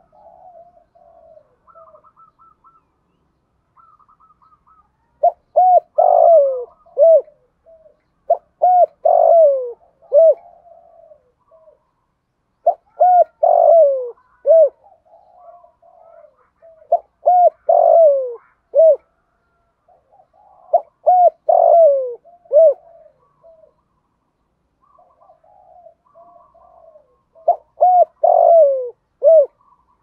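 Male spotted dove cooing: six loud phrases of quick coo notes with falling glides, coming about every four seconds, with softer, quieter notes between them.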